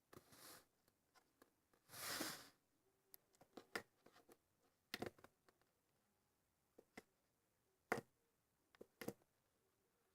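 Faint, scattered sticky clicks and small pops of homemade slime being stretched and squeezed by hand, with a soft rustling swell at the start and another about two seconds in.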